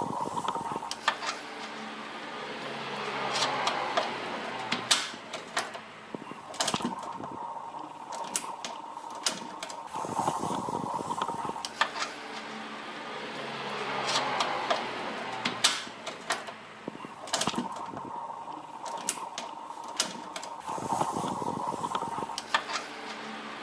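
Underbody splash guard's 10 mm bolts being taken out: a small tool motor whirring in spells of a few seconds, with scattered sharp clicks and clinks of the tool and bolts.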